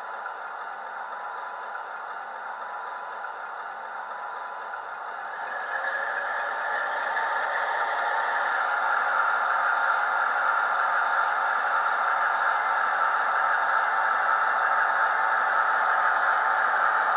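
Simulated diesel engine of a Class 48 sound file, played by an ESU LokSound 5 DCC decoder through the model locomotive's small speaker, running as the loco hauls its wagons. It grows steadily louder from about five seconds in, as the engine sound is worked harder.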